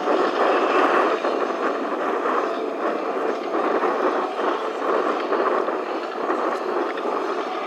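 Twin TF34 turbofan engines of an A-10 Thunderbolt II climbing away after takeoff: a steady rushing jet noise that slowly fades as the aircraft moves off.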